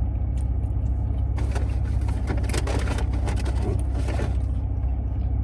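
Steady low rumble of an idling car engine. From about a second and a half in until about four seconds in, close crinkling and rustling sounds over it.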